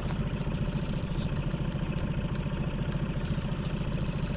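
Boat's outboard motor idling steadily, a low pulsing rumble, with light irregular clicking over it.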